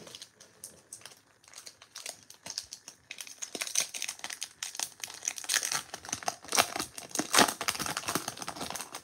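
Foil wrapper of a Topps 2022 Series 2 baseball card pack crinkling and tearing as it is pulled open by hand. There are a few light crackles at first, then dense, continuous crinkling from about three seconds in.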